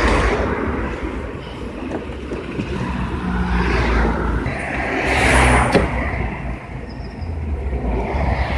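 Vehicle noise rumbling and swelling, loudest a little past halfway, with one sharp click near that peak.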